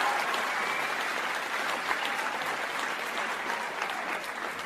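Crowd applause, many hands clapping densely, slowly dying down.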